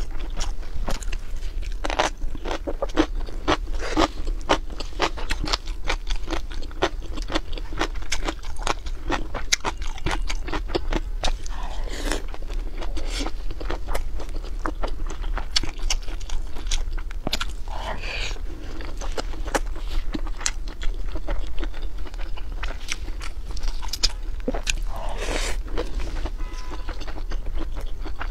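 Close-up eating sounds: steady chewing and crunching with many sharp crackles, broken by a few longer, smoother mouth sounds.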